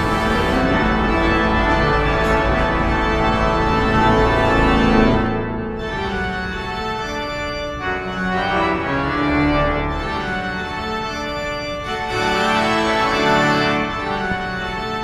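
Organ music: held chords that change every couple of seconds, fuller and louder in the first few seconds, then thinner and softer.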